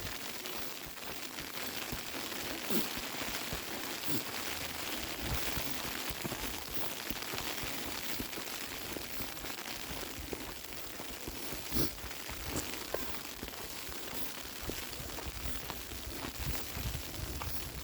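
Falling snow landing on surfaces: a steady hiss with scattered small ticks, and a sharper tick about twelve seconds in.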